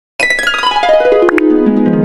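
Outro music: after a split second of silence, a quick run of notes falls in pitch and settles into a held chord.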